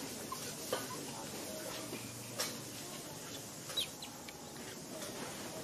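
A few short animal calls and some sharp clicks, scattered over a steady outdoor background.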